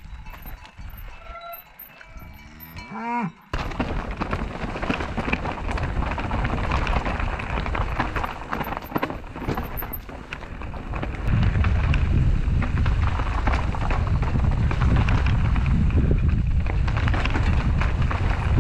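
Mountain bike riding down a rocky, gravelly trail: tyres crunching over stones and the bike rattling, with many small knocks. The noise cuts in suddenly about three and a half seconds in, and a heavy low rumble joins from about eleven seconds in.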